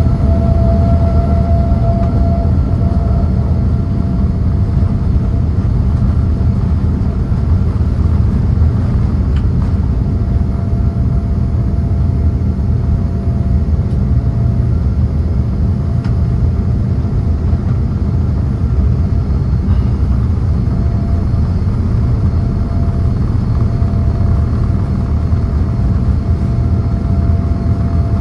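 Boeing 787 jet engines running, heard from inside the cabin by the wing: a loud, steady rumble with a whine that rises slightly in the first couple of seconds and then holds steady.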